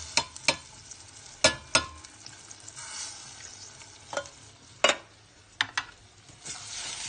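Pork and vegetables frying in olive oil in a stainless steel pan with chopped tomatoes just tipped in, giving a light sizzle. The sizzle is broken by a series of sharp knocks, mostly in pairs.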